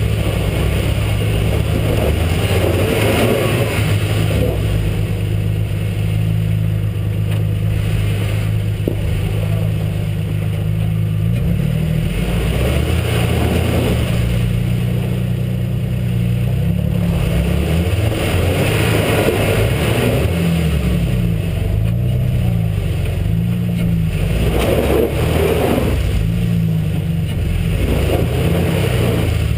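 The engine of an off-road 4x4 truck crawling slowly over a rough trail, heard through a camera mounted on its hood. It is a steady low drone whose pitch starts wavering up and down about twelve seconds in, with brief rushes of rumbling noise every few seconds.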